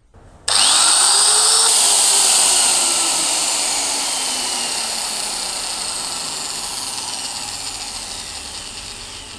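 Dong Cheng DJJ32 electric sheet metal shear switched on about half a second in: the motor spins up with a rising whine and then runs unloaded, its blade reciprocating with no sheet to cut. The high whine is loud and steady, growing gradually quieter toward the end.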